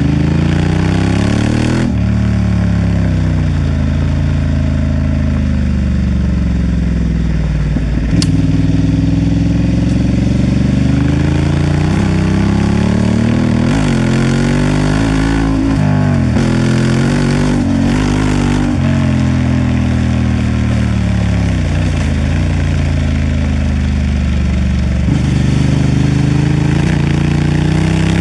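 Honda Transalp XL750's parallel-twin engine running on the move, its pitch repeatedly rising and falling as the throttle is opened and closed. One sharp click about eight seconds in.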